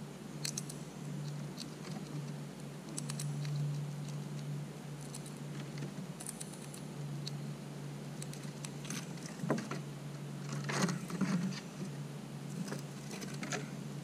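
Eastern gray squirrel's claws pattering and scratching as it approaches: scattered light clicks and scrapes that come thicker in the last few seconds, over a steady low hum.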